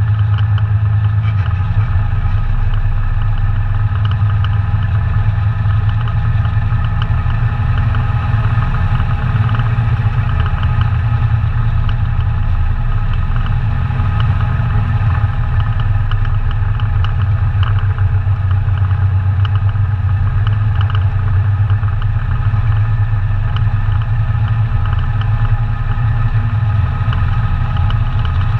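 ATV engine running steadily at a constant pitch, with a loud low hum.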